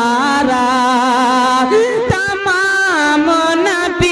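A man singing an Urdu naat into a microphone, drawing out long held notes that slide and waver.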